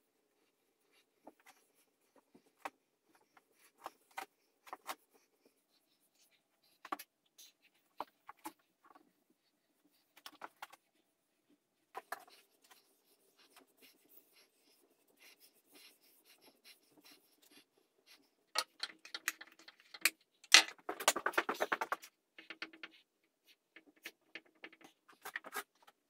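Foam brush wiping wood stain onto a wooden bed frame: soft scratchy strokes with scattered light knocks and clicks, and a busier stretch of rubbing and knocking about nineteen to twenty-two seconds in.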